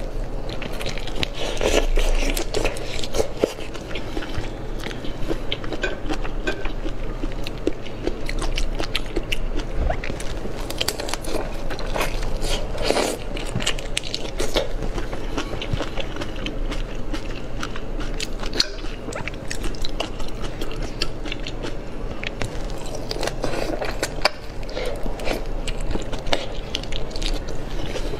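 Close-miked eating sounds: biting into and chewing whole raw soy-sauce-marinated shrimp, with wet smacking and crunching of the shells as many small clicks and crackles.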